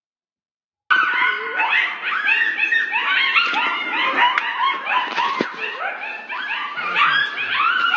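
A pack of dogs barking together, many barks overlapping in a continuous chorus, starting suddenly about a second in.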